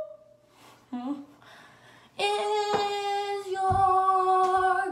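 A girl singing a long held note without words, starting about two seconds in after a short vocal sound near one second; the note steps slightly lower partway through.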